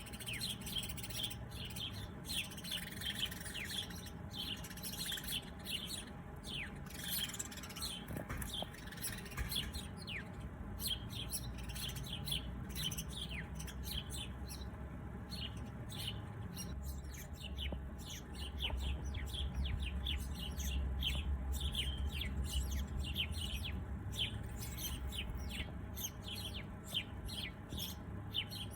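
Many small birds chirping: a dense run of short, quick, down-slurred chirps, with a low rumble underneath that grows louder for a few seconds past the middle.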